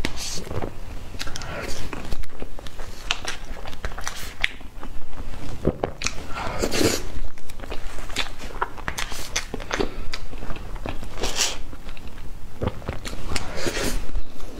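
Close-miked eating sounds of soft cream sponge cake: wet chewing and lip smacking, mixed with short clicks and scrapes of a fork cutting through the cake on its foil-covered board.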